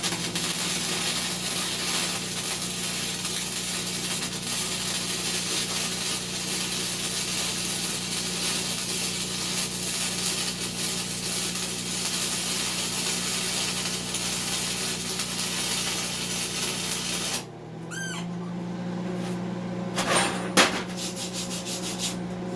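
Gasless flux-core wire welder laying a bead on 3/8-inch steel plate: a steady arc crackle over the machine's hum that cuts off suddenly about 17 seconds in, leaving the hum and a few sharp clicks.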